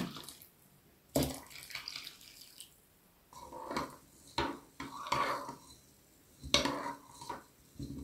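A metal spoon stirring rice in water in a glass bowl, scraping and clinking against the glass in a string of short strokes. The tail of a pour of water into the bowl is heard at the very start.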